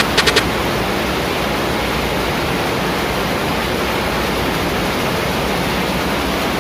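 Weaving shed full of running rapier looms: a dense, steady wash of machine noise with no single beat standing out, after a few rapid sharp clicks from a nearby loom in the first half second.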